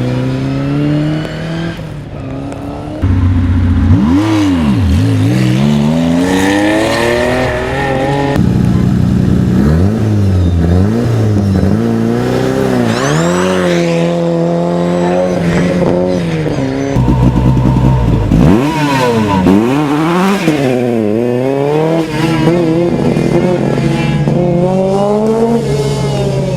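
Classic rally car engines revving hard and accelerating, one car after another, the pitch climbing and dropping back again and again. The sound jumps abruptly louder about three seconds in.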